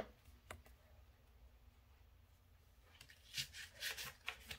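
Mostly near silence, then from about three seconds in a run of soft clicks and rustles as a small stack of Pokémon trading cards is handled and shuffled in the hands.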